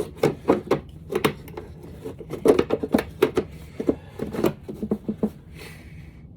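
Metal hand tools clicking and clinking in irregular clusters, as a ratchet and sockets are worked on the engine, with a short scrape near the end.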